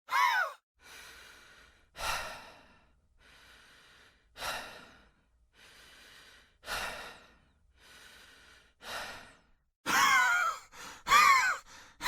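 A person breathing heavily and slowly, quieter in-breaths alternating with louder out-breaths about once a second. A short high sound falling in pitch opens it, and a quick run of loud falling pitched sounds closes it.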